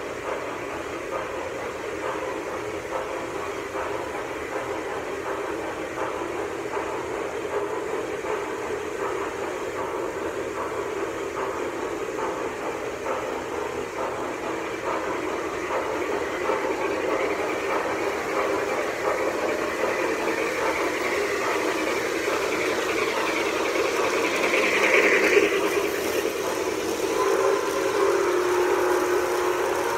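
Lionel O scale Blue Comet model train running on three-rail track, its wheels and motor rumbling steadily and growing louder as it approaches and passes close by. Its whistle begins to sound near the end.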